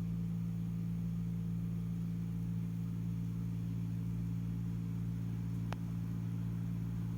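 Steady low hum of HVAC equipment heard from inside the air handler's mixing box, with a faint hiss over it. A single brief click comes near the end.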